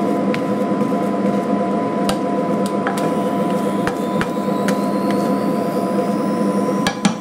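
Induction hob running with a steady hum and fan noise, which the cook calls very noisy, and a faint high whine rising slowly in pitch. Over it, a few light clicks as a plastic spatula touches the non-stick frying pan.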